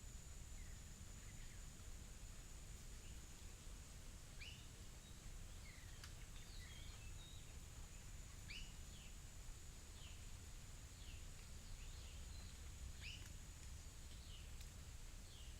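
Faint rural soundscape: many short, high bird chirps and quick chip notes scattered through, becoming more frequent after the first few seconds, over a steady thin high tone and a low rumble.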